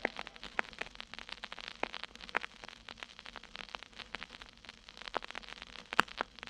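Surface noise of a 1963 Columbia stereo vinyl LP in the silent band between tracks: a faint steady hiss with frequent crackles and pops from the stylus in the groove, several a second.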